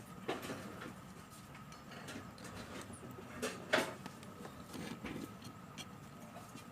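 Scattered light clicks and taps of small hand tools handled on a workbench during phone board soldering work, the loudest pair about three and a half seconds in, over a faint steady thin hum.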